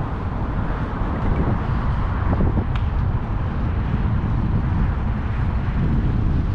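Steady road-traffic noise with a low rumble of wind on the microphone.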